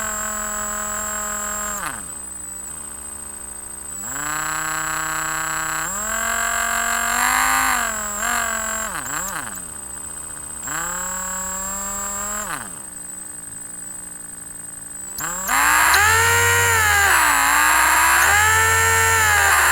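Electric drill motor whining as an angry little robot's voice, its pitch repeatedly sliding up and down as the motor speeds up and slows. It comes in uneven spells of a second to a few seconds and is loudest near the end.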